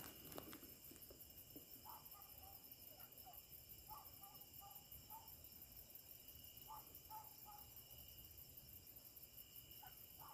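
Faint, distant hunting dogs barking in short clusters of barks as they chase an animal through the brush, over a steady high-pitched insect chorus.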